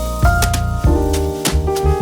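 Background music: piano or keyboard chords with a steady drum beat.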